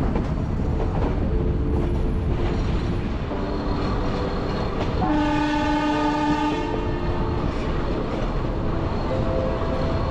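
Nilgiri Mountain Railway train running, heard from on board: a steady low rumble from the wheels and cars. About halfway through, the locomotive's horn sounds once for about a second and a half.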